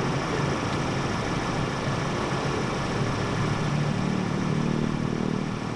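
Steady mechanical, engine-like hum over a noisy background. A lower-pitched drone in the hum grows stronger from about three and a half seconds in, then eases off near the end.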